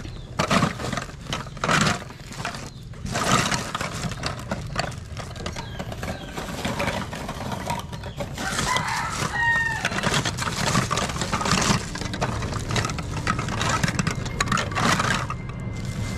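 Irregular knocks and clatter, loudest in the first few seconds, with a rooster crowing once about halfway through.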